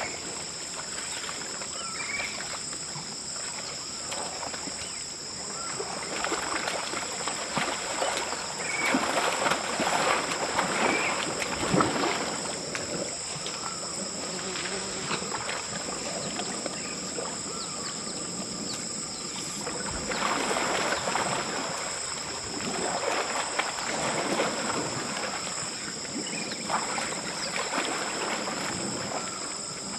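Insects buzzing steadily as two unbroken high tones, with bouts of water splashing and sloshing as an elephant calf flounders in shallow muddy water, strongest a third of the way in and again about two-thirds through.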